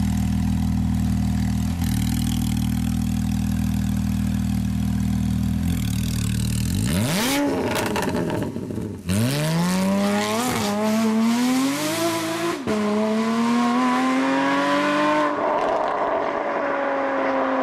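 Porsche Cayman S with an Armytrix cat-back exhaust, sports cats and headers idling steadily for about seven seconds, then accelerating away hard. The engine note climbs through the gears with four quick upshifts, then eases off and grows duller as the car moves away.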